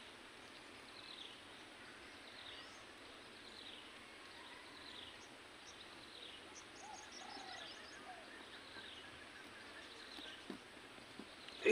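Faint rural ambience: a bird repeats a short falling note about once a second. A little past the middle there is a brief run of rapid high ticks.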